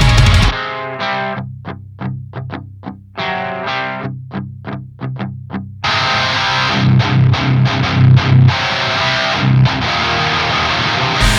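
High-gain distorted electric guitar, an HM-2-style 'Swedish chainsaw' tone from a Lichtlaerm Audio Medusa pedal blended with a Gehenna distortion, playing a riff on its own. It starts with clipped picked notes separated by short silences, and from about six seconds in becomes a denser, heavier section with a strong low chug. The full band with drums cuts out about half a second in and comes back near the end.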